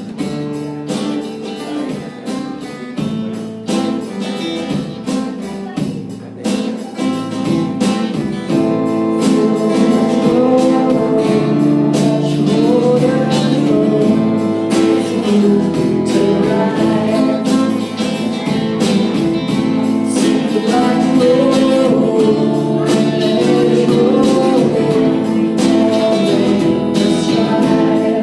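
Live band music: a strummed guitar plays alone for about eight seconds, then singing comes in and the music grows louder and fuller.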